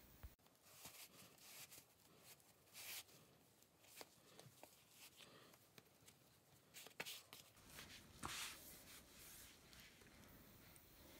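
Near silence with faint, scattered rustling and soft clicks of cloth and handling, a few louder swishes about 3, 7 and 8 seconds in.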